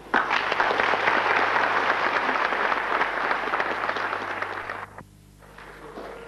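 Audience applauding, dense and steady, then cut off abruptly about five seconds in. A clarinet starts a held note near the end.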